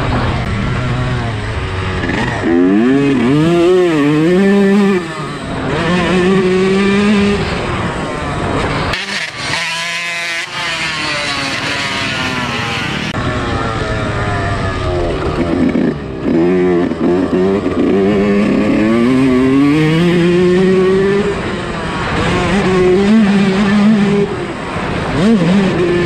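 Yamaha YZ125 single-cylinder two-stroke motocross bike being ridden hard, the engine revving up and falling back again and again as the throttle opens and closes through the gears. About nine seconds in, the deep part of the sound drops out for a second or so while the revs climb high.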